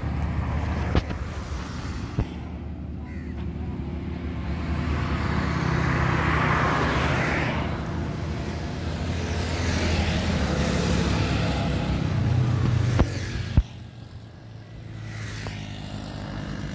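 Roadside traffic: vehicles pass close by, swelling and fading twice, over a steady low rumble. A few sharp knocks, loudest near the end.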